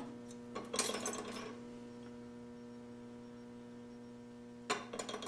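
Light metallic clinks and rattles of a small steel spring and a steel throttle linkage plate being handled, about a second in and again briefly near the end, over a steady electrical hum.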